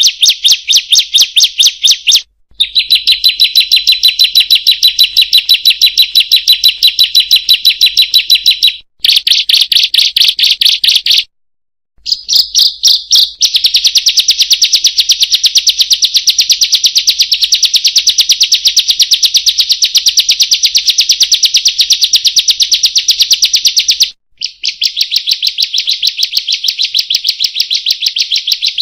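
Ciblek (prinia) song: a fast, even run of sharp, high chirps, many a second, in long stretches broken by brief pauses four times.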